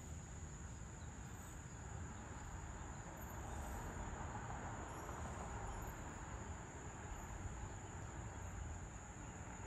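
Crickets trilling steadily in one high continuous note, over a low background rumble that swells slightly midway.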